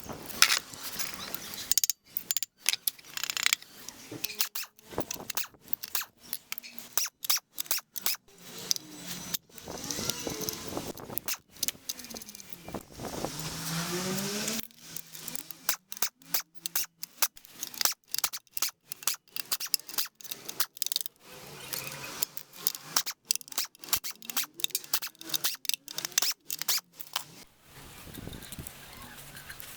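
Clinks, knocks and rattles of metal hand tools and engine parts being handled in a workshop, sped up and chopped into many short fragments with abrupt cuts between them.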